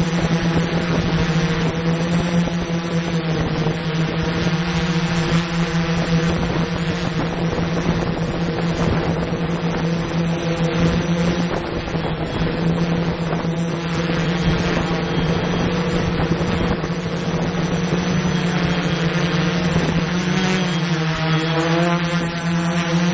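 Quadcopter drone's propellers and motors humming steadily, with a wavering pitch that shifts about twenty seconds in as the motors change speed.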